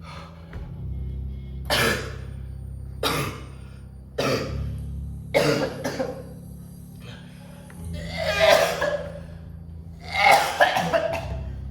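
A person coughing in a series of harsh fits, the last ones near the end the loudest, over low droning background music.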